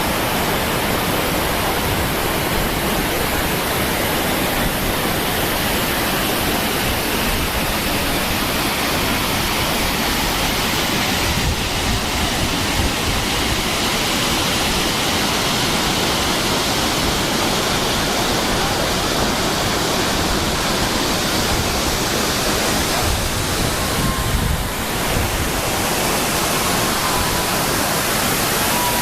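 Multnomah Falls: the steady, loud rush of a tall waterfall's falling water.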